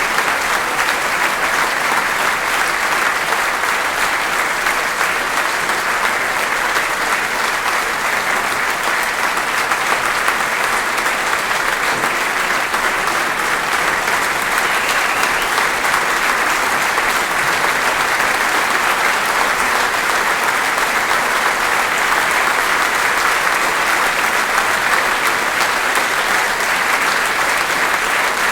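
Audience applauding: many hands clapping in a dense, steady wash with no breaks or swells.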